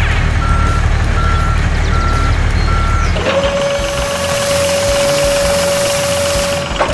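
A construction vehicle's reversing alarm beeps four times over a low engine rumble. Then a single long, steady tone with a high hiss runs for about three and a half seconds.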